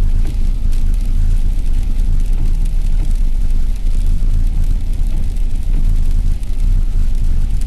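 Steady low rumble of a car driving, heard from inside the cabin: engine and tyre noise on a snow-covered road.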